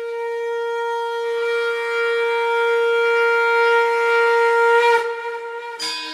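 One long, steady note blown on a horn-like wind instrument, held for about five seconds, as a transition in the song mix. New instrumental music starts near the end.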